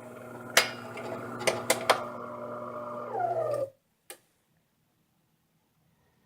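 DeLonghi Magnifica S bean-to-cup coffee machine running with a steady mechanical hum and several sharp clicks, as it does while showing its "grounds too fine, adjust mill" error. Near the end a falling whine as a motor winds down, then the sound stops abruptly, followed by one more click.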